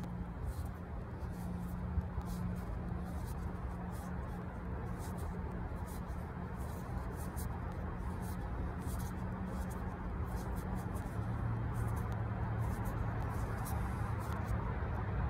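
Light scratchy rubbing and faint clicks of hands gripping and turning a painted bowling pin, over a steady low hum and background noise.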